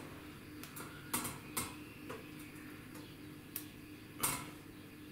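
Soft copper wire and steel nails clicking and tapping against each other as the wire is wound tightly around the bundled nails. Light, irregular clicks, about six of them, the loudest about four seconds in.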